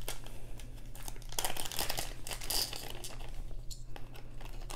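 Thin clear plastic zip-top bead bag crinkling in the hands as it is handled and opened: a dense run of irregular crackles.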